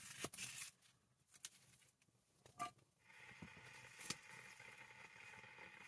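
Knife cutting green peppers on a wooden log used as a cutting board: a few quiet taps and scrapes with pauses between them. A faint steady hum comes in about halfway.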